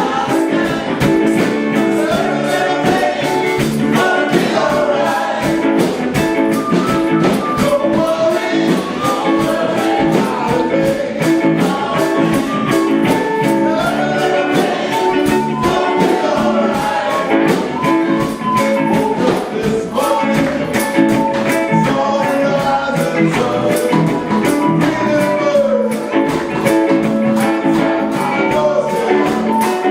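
A song with a singing voice, guitar and a tambourine keeping a steady beat.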